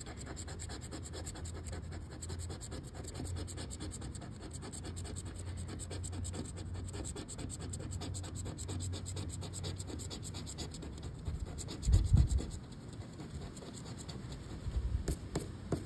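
Fast, continuous scratching of the coating off a crossword scratch-off lottery ticket, uncovering the letter grid, with a low bump about twelve seconds in.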